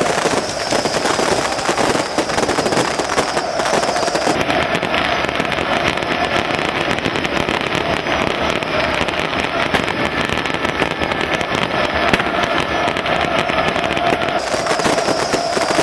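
Fireworks and firecrackers crackling in a dense, unbroken barrage of rapid pops.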